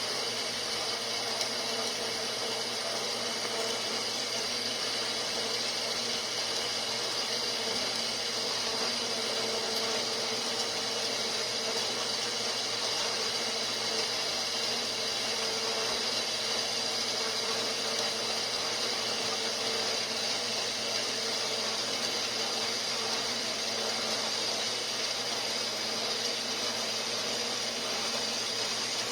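A small motor-driven machine running steadily, a constant hum with a high whine, unchanging throughout.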